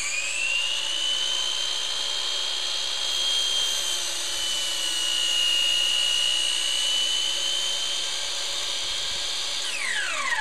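Electric miter saw motor running at full speed with a steady high whine. The pitch sags a little in the middle while the blade cuts through a thick wooden post. Near the end the motor is switched off and winds down in a falling whine.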